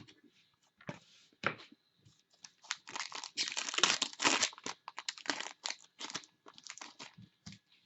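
Trading-card pack wrapper being torn open and crinkled by hand, a run of crackles that is thickest and loudest in the middle.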